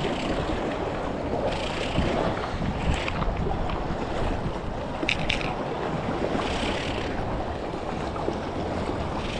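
Wind buffeting the microphone over waves washing against jetty rocks.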